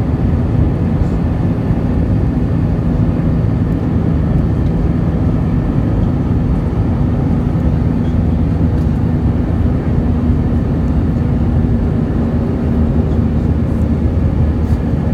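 Cabin noise inside an Airbus A320 climbing out after takeoff: the steady low rumble of its wing-mounted turbofan engines and rushing air, with a faint steady hum over it.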